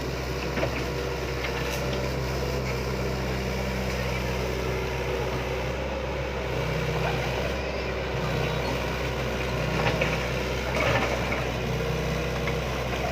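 Hitachi hydraulic excavator's diesel engine running while digging, its note shifting several times as the load changes, with a few light knocks.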